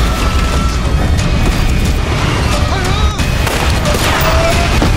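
Trailer soundtrack: loud dramatic music mixed with booming crash and impact effects as an airliner goes down.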